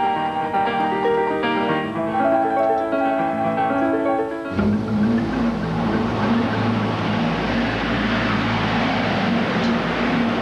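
Keyboard music playing for about four and a half seconds, then a sudden change to a Ford pickup truck's engine and tyres as it drives in, heard as a steady rushing noise with a low hum.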